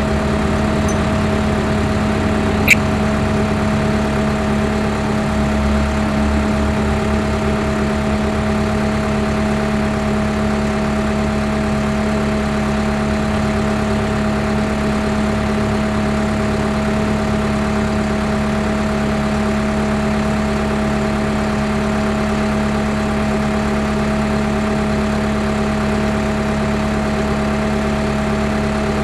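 Skid steer engine running at a constant speed, an unchanging drone throughout, with one short click about three seconds in.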